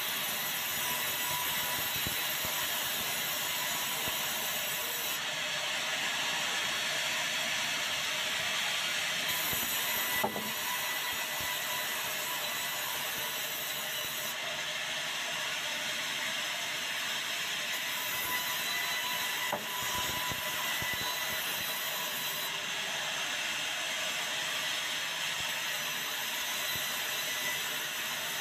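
Sawmill saw running and cutting white meranti boards fed through on a roller table: a steady high-pitched whirr and hiss. There are two sharp knocks, about ten and twenty seconds in.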